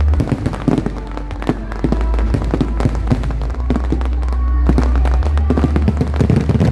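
Fireworks bursting and crackling repeatedly over loud music with a deep, steady bass.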